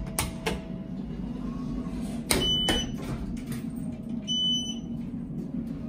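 Elevator push-button panel beeping as buttons are pressed: two short, high, steady beeps about two seconds apart, with a few button clicks, over a steady low hum.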